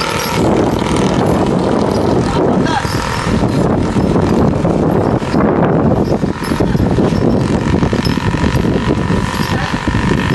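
An engine running steadily, with people talking over it.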